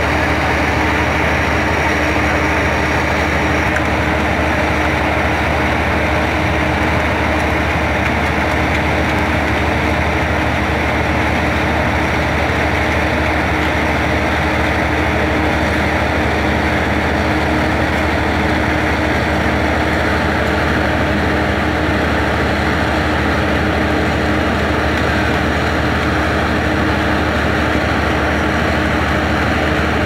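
A machine's engine running steadily on the building site, an even drone with a constant hum.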